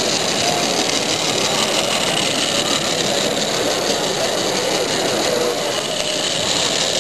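Small Regner Max vertical-boiler live steam locomotive running, with a steady hiss of steam, over the constant background din of a crowded hall.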